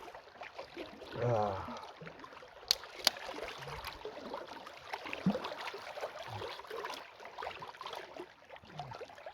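Lake water lapping and trickling gently at the shore, with a short hum-like voice sound about a second in and a couple of sharp clicks about three seconds in.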